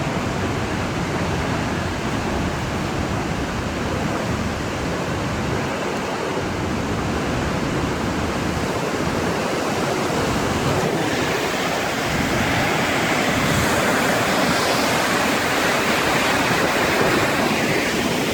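Flash-flood water rushing down a desert canyon: a steady, loud roar of churning water that grows a little louder about two-thirds of the way through.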